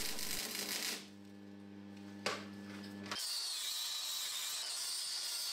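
Stick-welding arc crackling on the steel axe head for about a second, then stopping. A low steady hum and a single click follow, and from about three seconds in an angle grinder runs steadily on the welded axe head with a high whine.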